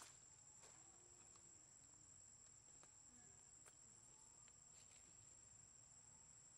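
Near silence: faint outdoor ambience with a steady thin high whine and a few faint ticks.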